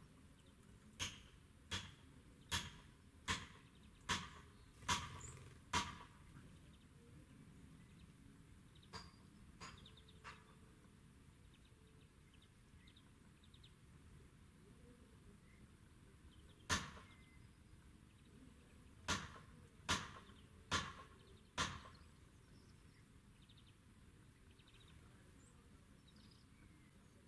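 A small bird pecking at a garden bird feeder: a run of seven sharp taps a little under a second apart, three fainter taps, then a single tap and a run of four more.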